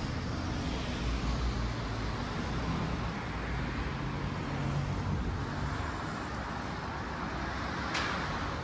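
Street traffic: a steady rumble of cars on the road, with a low engine hum from a passing vehicle in the middle and a brief hiss near the end.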